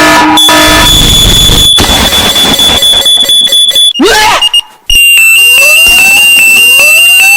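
Very loud, distorted electronic alarm tones: a steady high piercing tone for about three and a half seconds, a brief cut-out just before the midpoint, then a second steady high tone with repeated rising sweeps under it.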